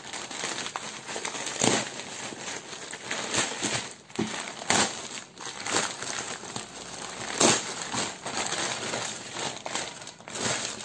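Plastic courier mailer bag crinkling and rustling as hands grip and pull it open, with a few sharper, louder crackles along the way.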